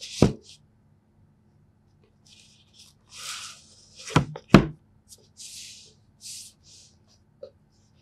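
Cardboard packaging handled on a wooden desk: a knock just after the start, then the printed outer sleeve sliding off the rigid inner box with a dry, papery scraping. Two sharp knocks about half a second apart come midway as the boxes are put down, followed by more scraping.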